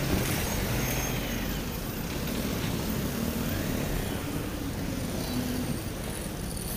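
Road traffic heard from a motorcycle moving through slow city traffic: engines of the bike and the vehicles around it running, over a steady low rumble.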